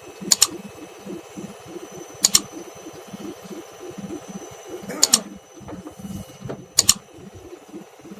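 IFB Senator WSS front-loading washing machine running with a steady low rhythmic throb, broken by sharp double knocks about every two seconds. This is the vibration and knocking of a machine running overloaded at full speed.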